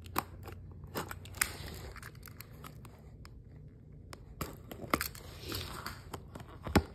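Small keychain box cutter slitting the tape along a cardboard box's flap: sparse clicks and short scratches of the blade, busier about four and a half seconds in, with a sharp click near the end.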